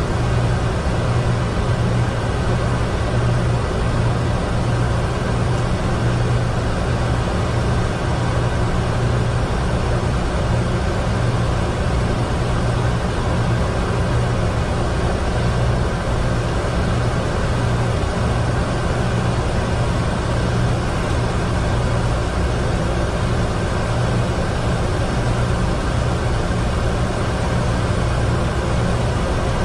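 Steady flight-deck noise of a Boeing 747-200 in the climb: a constant rush of airflow over a low engine hum, unchanging in level.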